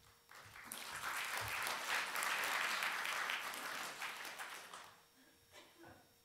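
An audience applauding. It swells within the first second, holds for about three seconds, then dies away about five seconds in.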